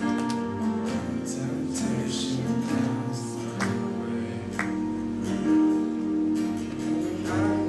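Live praise and worship music: acoustic guitar strumming with a group of men's voices singing along.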